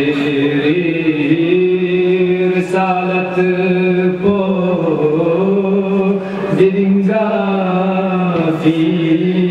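A man chanting a qasida in Balti into a microphone, in long held notes that glide slowly up and down.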